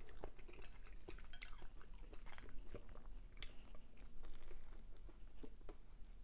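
A person chewing Chinese takeout food close to the microphone, with many small, irregular mouth clicks.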